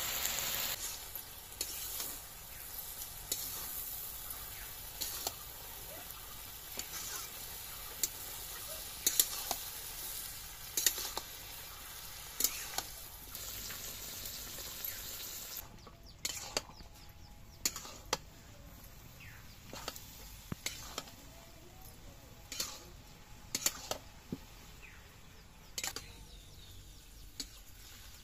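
Puishak (Malabar spinach) stems and leaves sizzling in a kadhai, with a spatula scraping and clicking against the pan as the greens are stirred. The sizzle drops off about halfway through, leaving mostly the spatula clicks.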